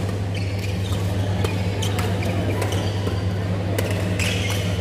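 Badminton rally: rackets striking a shuttlecock in a string of sharp, irregular clicks, over a steady low hum in a large hall.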